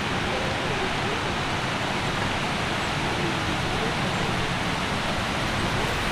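Waterfall's rushing water: a steady, even hiss.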